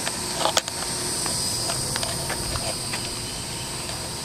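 Outboard motor with its cowling off, running steadily at idle without cooling water hooked up, with a few faint clicks over it.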